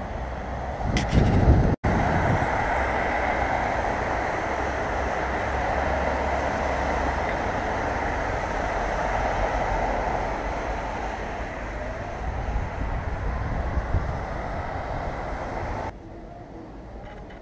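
Steady road-traffic noise, tyres of cars running along a snowy city road, with a brief low thump about two seconds in. About sixteen seconds in it drops to a quieter street ambience.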